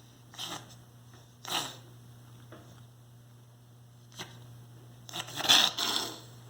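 Short coughing bursts: two single coughs in the first two seconds, then a longer, louder run of several coughs about five seconds in.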